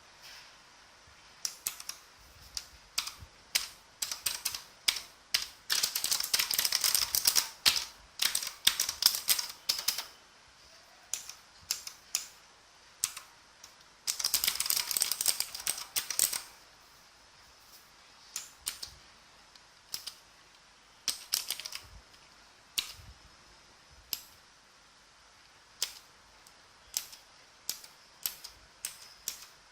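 Typing on a mechanical keyboard with clicky blue Outemu switches: sharp clicking keystrokes that come in fast runs twice, with slower single key presses between and after.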